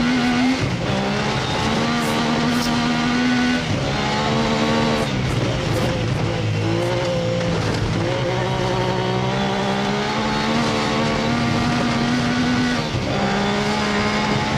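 A Peugeot rally car's 2.5-litre Ford Cosworth V6 running hard under load, heard from inside the cabin. The engine note holds high and is broken by gear changes several times.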